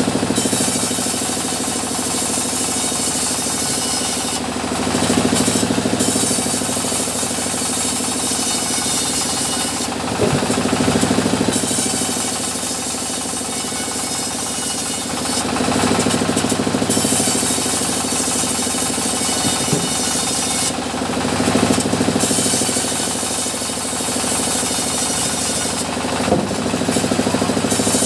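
Sawmill machinery running steadily while mahogany is sawn, a motor hum under a saw's hiss. The hiss swells in a regular cycle about every five and a half seconds.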